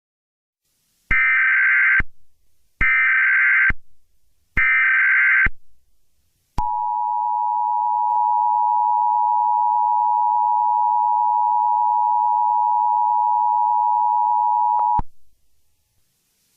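Emergency Alert System tones: three evenly spaced bursts of SAME header data, about a second each, then the two-tone EAS attention signal, a steady dual tone held for about eight seconds before it cuts off sharply. This sequence announces that an emergency message is about to be broadcast.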